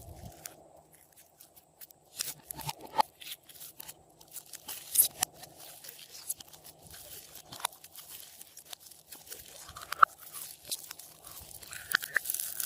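Slime being worked by hand, giving an irregular run of sharp crackles, clicks and pops.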